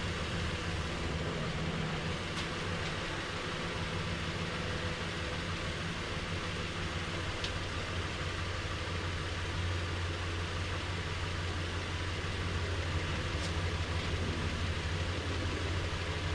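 Nissan Frontier's 4.0-litre V6 idling steadily as it warms up, running so the automatic transmission fluid can be checked hot.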